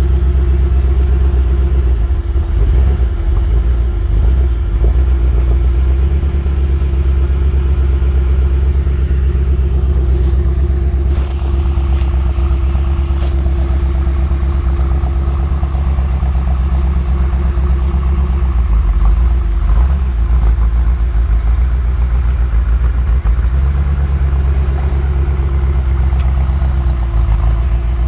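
BMW M6 engine idling rough with two misfiring injectors, the two cylinders shut down, giving a steady low running sound that wavers unevenly in places.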